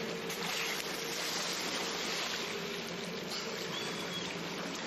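Steady hum and wash of water noise as heard from a small boat on the water, with no distinct events. A brief, faint high tone comes about four seconds in.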